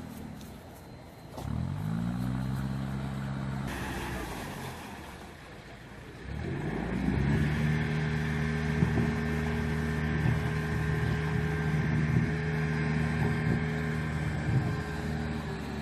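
Narrowboat's diesel engine running as the boat passes close by, with a low, steady engine note. The note dips and picks up again twice early on, as the throttle is eased and opened, then holds steady from about six seconds in.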